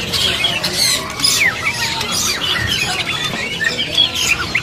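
Many caged songbirds chirping and calling over one another: a dense, continuous mix of short whistles, chirps and squawks.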